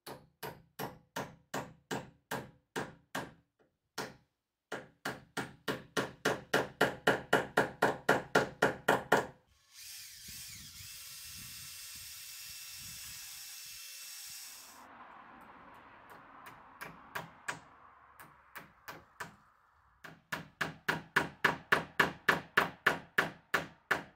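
Hammer driving galvanized nails at an angle into a wooden porch rail: runs of quick, even blows, about three to four a second, the second run growing louder. Midway a cordless drill runs for about five seconds, drilling into the rail, then the hammering starts again near the end.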